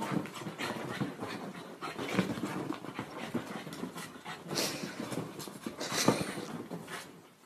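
Small dog panting hard and fast while it races and scrambles over a fabric couch.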